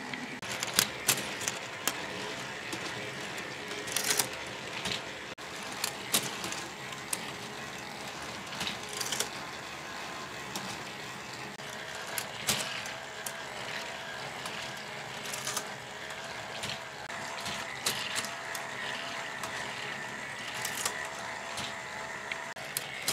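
All-K'NEX automated parts feeder running off one electric motor: plastic gears, crank and linkages turning with a steady mechanical whir and irregular plastic clicks and clacks. A faint wavering whine comes in about halfway.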